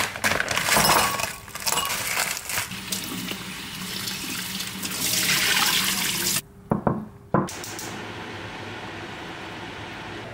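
Kitchen tap running into a ceramic bowl of frozen shrimp in a stainless steel sink, splashing as hands turn the shrimp to thaw them. The water cuts off about six seconds in. A few sharp clicks follow, then a steady, quieter rush of water being poured from a measuring cup into a pot.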